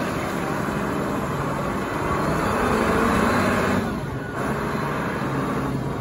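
Large Caterpillar forklift's engine running steadily as the truck drives and turns, dipping briefly about four seconds in.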